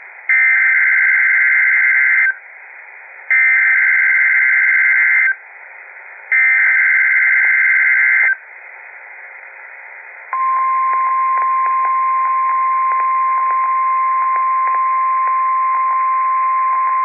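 NOAA Weather Radio emergency alert signalling heard through a weather radio receiver: three loud two-second bursts of buzzy SAME digital header data, a second apart. About ten seconds in, the steady single-pitch warning alarm tone (1050 Hz) starts and holds, with faint static clicks under it.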